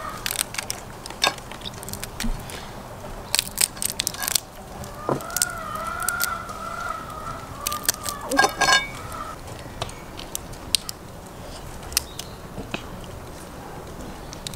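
Sharp cracks and crunches of cooked crayfish shells being broken open by hand, scattered throughout, with a dense run of cracks just after eight seconds in. A rooster crows once in the background from about five seconds in.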